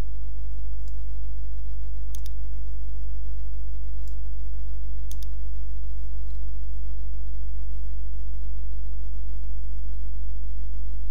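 Steady low electrical hum with evenly spaced overtones, with a few faint computer mouse clicks about one, two and five seconds in.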